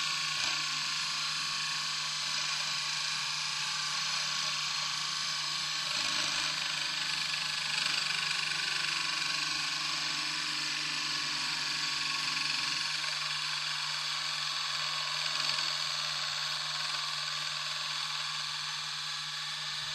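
Hurricane balls, two welded steel ball bearings, spinning at speed on a mirror, giving a steady whirring hiss over a low hum.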